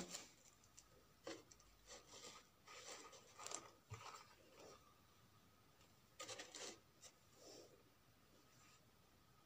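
Soft rustles and scrapes of paper and card being handled, in a scatter of short strokes, with one sharp click right at the start.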